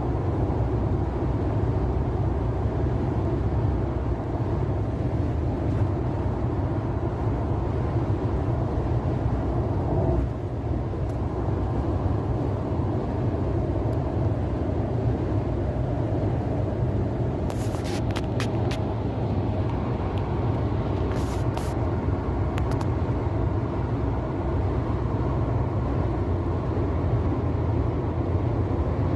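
Steady road and engine noise inside a Nissan car's cabin at expressway speed, about 110 km/h, with a few faint ticks about two-thirds of the way through.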